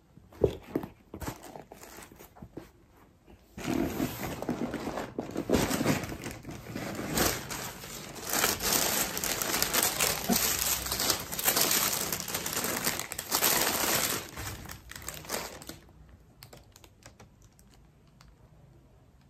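Tissue paper crinkling and rustling as it is unfolded from around a pair of shoes in a shoebox. The crinkling is dense and loud from a few seconds in until about sixteen seconds, with a few light handling clicks before it starts.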